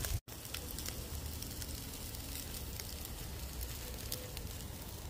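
Rack of ribs sizzling over the fire of an outdoor grill, the fire crackling with scattered small pops over a low steady rumble. The sound drops out completely for a moment about a quarter second in.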